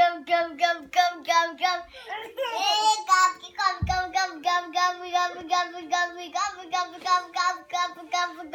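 Seven-month-old baby laughing: a long run of short, evenly spaced laughs at about three a second, broken about two and a half seconds in by a rising squeal.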